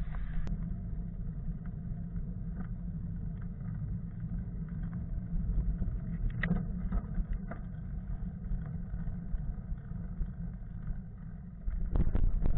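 Steady low rumble of wind and rolling noise on a camera riding along on a bicycle, with scattered small clicks and knocks. Near the end it gets louder and rougher as the bike rolls onto a rocky dirt track.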